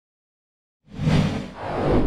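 Silence for under a second, then two rushing whoosh swells over a low rumble: the intro sound effect of an animated logo, leading into music.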